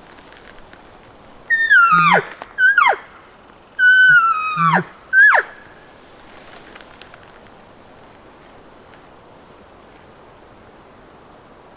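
Bull elk bugling: four loud high whistles, each sliding steeply down in pitch, with low grunts under the two longest, over about four seconds starting a second and a half in.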